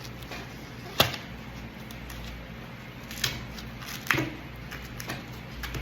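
Utility knife blade slicing through two layers of LDH fire hose, with a few sharp clicks or snaps as the blade cuts and catches, the loudest about a second in. The two layers take two passes of the knife to cut through.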